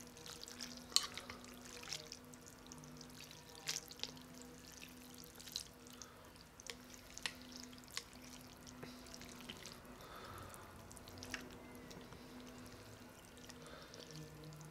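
Wooden chopsticks stirring and lifting ramen noodles in a glass bowl of broth: scattered light clicks with small drips and splashes, over a faint steady hum.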